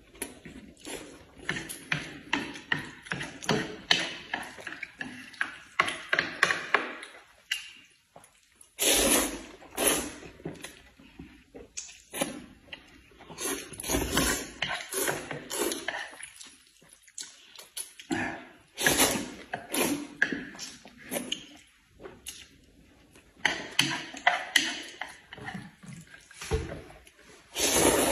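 Noodles being slurped and chewed by two people: wet sucking and smacking sounds in irregular bursts, with several louder slurps.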